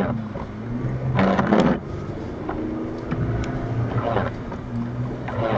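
Off-road vehicle engine idling steadily, with a few short noisy bursts about a second in and near the end.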